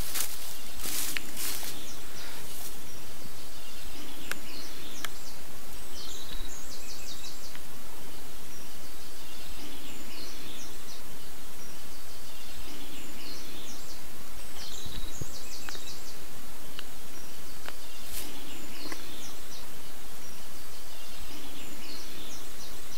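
Steady woodland background noise with birds chirping briefly every few seconds, and a few faint clicks.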